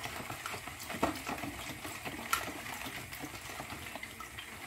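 Wooden spoon stirring lemon pieces in water in a plastic bowl: liquid sloshing, with many light knocks of the spoon against the bowl.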